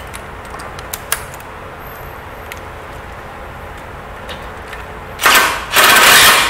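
DeWalt cordless impact driver hammering a bolt home into a caster mount, in a short burst about five seconds in and then a longer one, after a few light clicks of handling.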